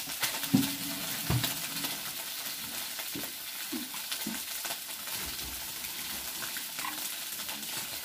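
Pork sizzling on a tabletop mookata grill-pan: a steady hiss, with scattered light clicks.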